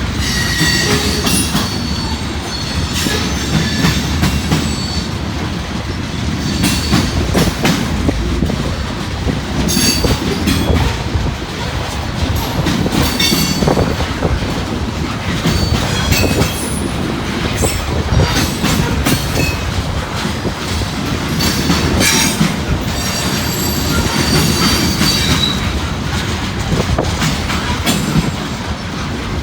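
Loaded covered hopper cars of a unit grain train rolling past, with a steady rumble of wheels on rail, repeated clicks over rail joints, and short high-pitched wheel squeals scattered throughout.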